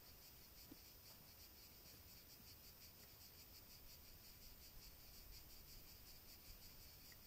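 Faint chorus of cicadas in pine trees: a high, rapidly pulsing buzz, otherwise near silence.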